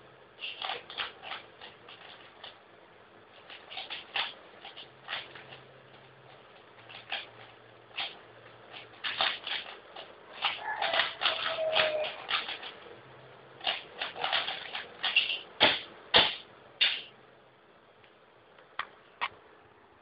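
Rubik's cube being turned fast in a timed speedsolve: rapid, irregular flurries of plastic clicking and clacking as the layers snap round, thinning to a couple of lone clicks near the end.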